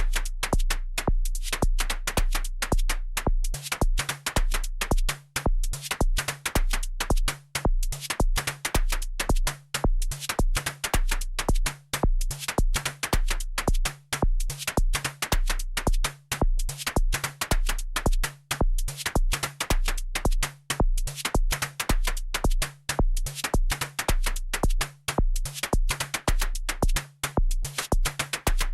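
Electronic background music with a steady drum-machine beat and a pulsing bass line.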